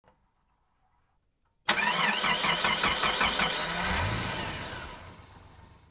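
Intro sound effect for a title animation: starts suddenly a little under two seconds in, with warbling tones over a low rumble and a couple of rising sweeps, then fades out over about two seconds.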